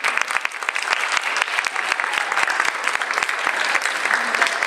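Audience applauding with dense, steady clapping at the end of a lecture.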